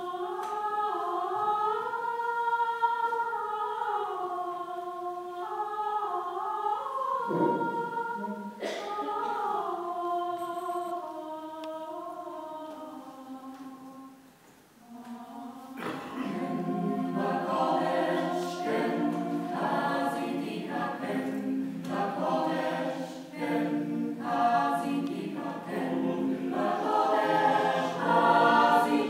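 Mixed choir of women's and men's voices singing in harmony under a conductor. Slow, held chords give way, after a brief pause about halfway through, to a livelier passage of shorter, quicker notes.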